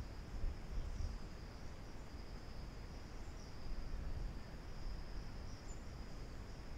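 Crickets chirping in a continuous high trill, over low background noise on the microphone.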